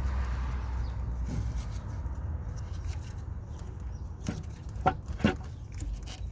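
Scattered clicks and knocks of parts being handled and unclipped in a car's engine bay, loudest twice about five seconds in, over a steady low rumble.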